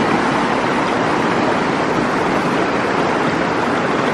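Fast-flowing mountain stream running high and muddy after heavy rain: a steady, loud rush of turbulent water.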